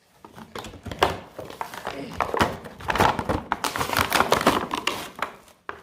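Doll packaging of cardboard and plastic being handled and pulled open, a busy run of irregular crinkling, clicks and taps.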